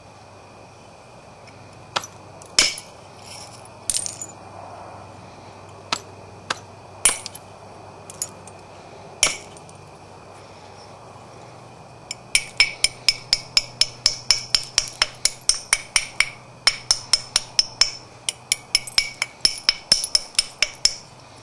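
Copper-tipped knapping tool clicking against the edge of a Florida coral biface as platforms are ground and set up: a few scattered sharp clicks, then, about twelve seconds in, a fast, even run of ringing clicks, about four to five a second.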